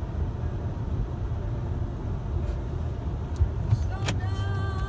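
Steady low rumble of a car heard from inside its cabin. About four seconds in comes a click, followed by a steady high-pitched tone.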